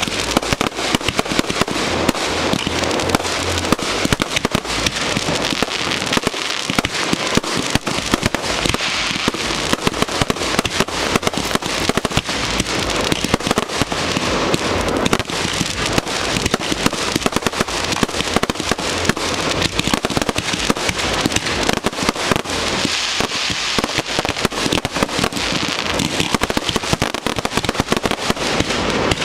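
Fireworks display heard at close range: a dense, continuous barrage of shell bursts and crackling stars, many bangs a second with no let-up.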